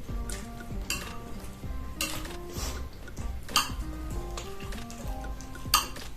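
Eating utensils clinking and scraping against a dish of noodles, with several sharp strikes, the loudest near the end. A simple background melody plays under it.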